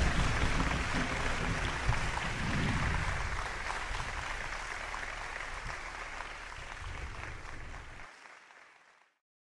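Crowd applauding, gradually fading away to silence near the end.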